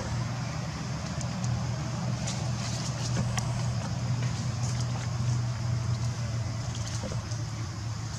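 A motor running steadily with a low, even hum, with faint short high-pitched chirps scattered over it.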